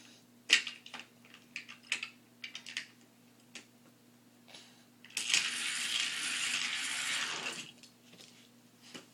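Plastic clacks as a toy car is handled at the top of a plastic spiral ramp tower, then a toy car rolling down the spiral track: a continuous rattle lasting about two and a half seconds, starting about five seconds in.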